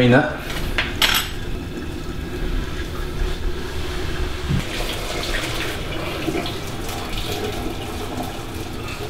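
Hot cooking water poured from a steel saucepan of boiled chicken breasts into a kitchen sink: a steady rush of water. A couple of metal clanks of the pan come near the start.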